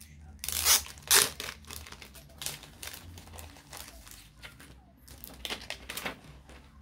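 Crafting materials rustling and crinkling as they are handled and moved about on the work surface. The loudest rustles come about half a second to a second and a half in, with softer ones later.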